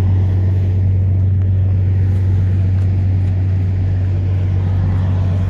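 Steady low drone of an idling diesel truck engine, unchanging throughout.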